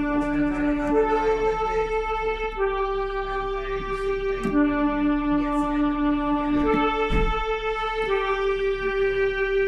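Electronic keyboard playing a slow melody of long held notes, mostly one at a time, each lasting a second or two.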